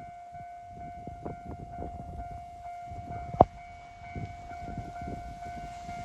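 Japanese level-crossing warning alarm ringing steadily while a train approaches, with a sharp knock about three and a half seconds in.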